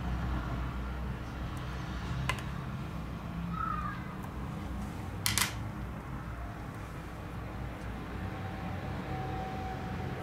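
Steady low background hum, broken by a small click about two seconds in and a sharper, louder click about five seconds in as steel tweezers are set down on the rubber work mat.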